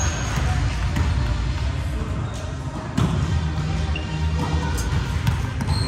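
Busy gym with balls bouncing and being struck on a hardwood floor, now and then a sneaker squeak, over background voices and music, all echoing in the large hall.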